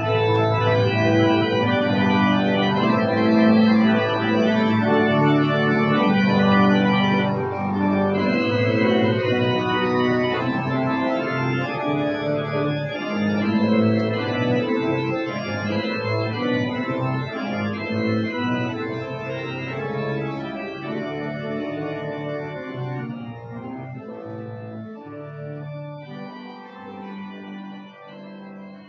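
Church organ playing slow, held chords, fading out over the last several seconds.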